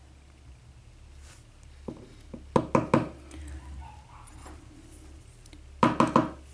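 Quick clusters of sharp clicks and taps from steel tweezers working in an Assa lock cylinder housing and setting small pins and springs down on a parts tray. There are two bursts, one about two seconds in and one near the end.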